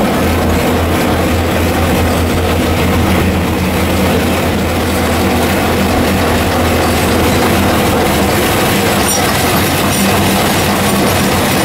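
The Botchan train's diesel-powered replica steam locomotive and its passenger car running along street tram tracks, a steady engine hum under the noise of the wheels on the rails.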